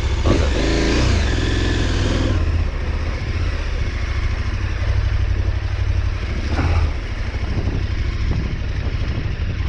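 KTM 1290 Super Adventure R's V-twin engine running at low revs, with a short rise and fall in engine note in the first couple of seconds.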